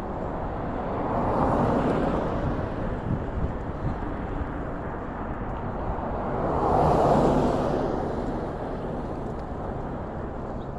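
Road traffic passing close by: two vehicles swell up and fade away, one about two seconds in and a louder one about seven seconds in, over a steady rumble.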